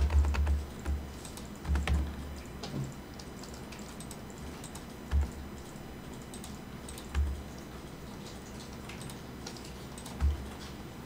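Scattered clicks from a computer keyboard and mouse as they are used, with a few dull low thumps. The thumps cluster at the start, then come about two, five, seven and ten seconds in.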